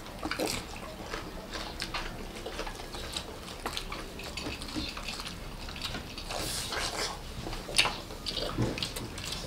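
People eating crispy fried chicken and rice by hand, close to the microphone: irregular crunching, chewing and mouth smacks, with a sharper crunch about eight seconds in.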